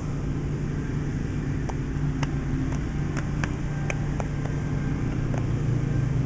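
A steady low mechanical hum, like a motor or engine running, with a scattering of short light clicks through the middle.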